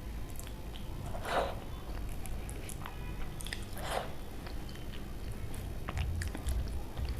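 A person eating close to the microphone: two crisp bites, about a second in and again about four seconds in, amid chewing and many small mouth clicks.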